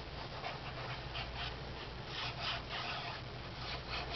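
Hands rubbing and smoothing a sheet of patterned paper down onto an album page, a series of irregular papery strokes.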